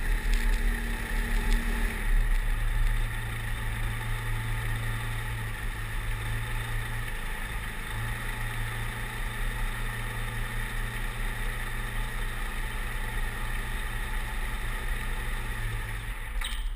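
Pipistrel Virus SW 100's Rotax 912 flat-four engine and propeller running at low throttle while taxiing. The level steps down about two to three seconds in as power comes back to idle, holds steady, and the engine cuts out right at the end.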